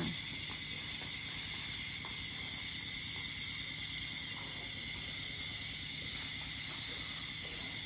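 Steady chorus of night insects, crickets chirring in an even high drone, with a few faint clicks.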